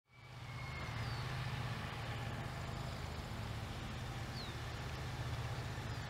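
Wind rumbling on the microphone over a steady hiss, fading in at the start, with a couple of faint bird chirps.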